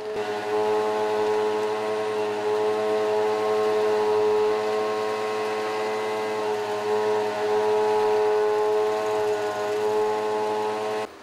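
Sewer vacuum truck's pump running with a steady, unwavering whine, one held tone with overtones, that cuts off abruptly near the end.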